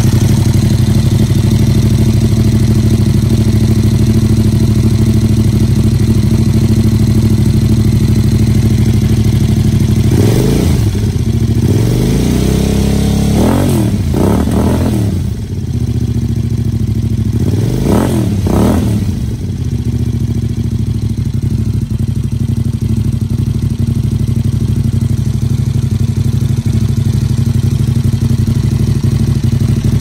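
Aprilia Caponord 1200's 90-degree V-twin idling through a Yoshimura R77 carbon slip-on muffler, steady and low. Between about ten and nineteen seconds in, it is given several quick throttle blips, revving up and dropping back to idle each time.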